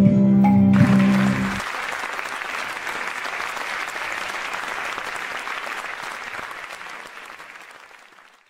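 Audience applause that starts as the dance music ends about a second and a half in, then carries on and fades out near the end.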